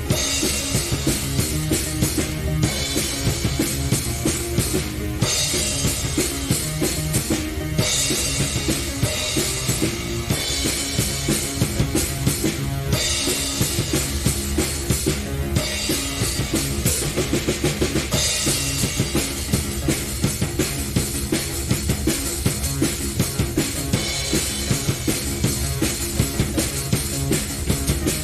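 Instrumental progressive-rock jam: a drum kit playing a busy, driving beat of kick, snare and cymbals under sustained keyboard chords.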